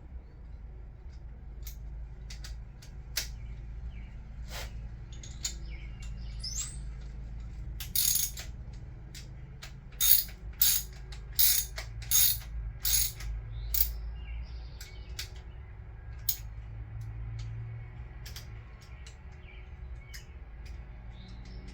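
Hand ratchet clicking as the camshaft bearing cap bolts on a Toyota 2JZ cylinder head are run down. About six short ratcheting strokes come in a run in the middle, with scattered light tool clicks and taps around them.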